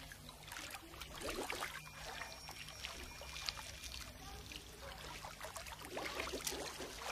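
Faint bubbling, trickling water, in irregular short spurts over a low steady hum.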